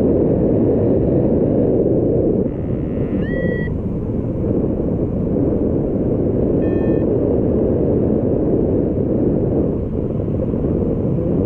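Steady wind rushing over the microphone during a paraglider flight, with two short electronic beeps from the flight variometer, the first sliding upward in pitch about three seconds in and the second near seven seconds in.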